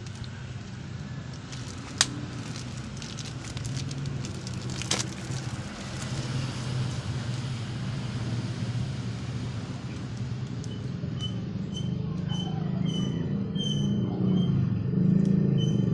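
Low steady engine-like rumble that slowly grows louder, with two sharp clicks about two and five seconds in, and a run of short high chirps near the end.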